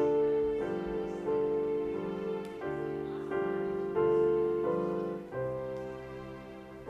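Keyboard playing a slow holiday medley: held chords that change about every two-thirds of a second.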